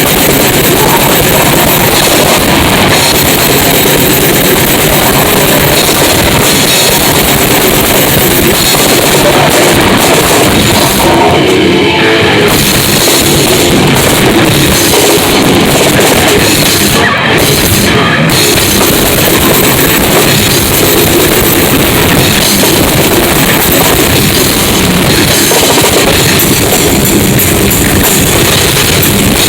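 Loud, dense heavy rock played by a band in rehearsal, with a drum kit and bass drum driving it without a break.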